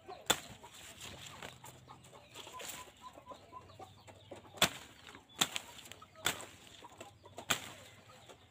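Chickens clucking faintly over a low background, broken by about five sharp clicks spread through, which are the loudest sounds.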